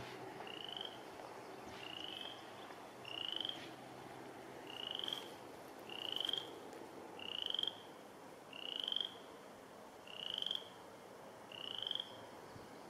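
Boreal chorus frog calling from the pond: about nine short rising trills, each about half a second long, repeated steadily every second and a half or so.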